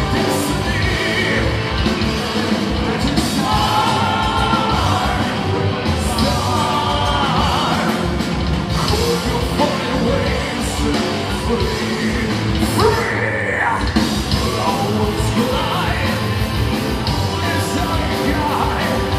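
Symphonic metal band playing live: a loud, steady full-band mix of drums, guitars and keyboards, with a singer holding long notes over it several times, one climbing high about two-thirds of the way through.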